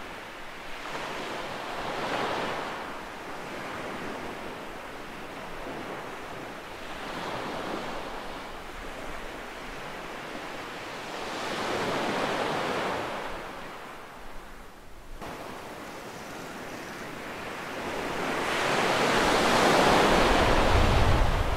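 Small surf waves breaking on a sandy beach and washing up the shore, four swells of rushing water a few seconds apart, the last and loudest near the end.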